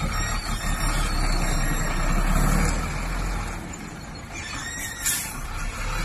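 Dump truck's diesel engine running as the truck moves slowly, swelling about two seconds in. About five seconds in there is a short hiss of its air brakes.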